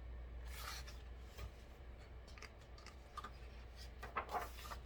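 Pages of a picture book being handled and turned: soft paper rustles and small taps, with a faint rustle about half a second in and the strongest rustling near the end, over a low steady hum.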